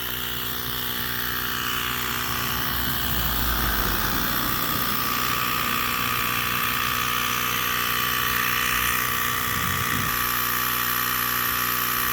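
Small electric tire inflator running steadily, with a motor whine over a buzzing drone, pumping air into a punctured tire that has just been plugged.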